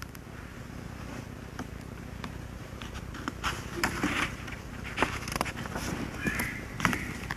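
Quiet church room tone with a low steady hum, broken by scattered small knocks, clicks and shuffles, more frequent from about three seconds in.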